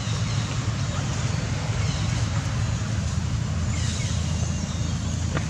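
Steady low rumble of wind noise on the microphone, with a few faint high squeaks and a couple of small clicks near the end.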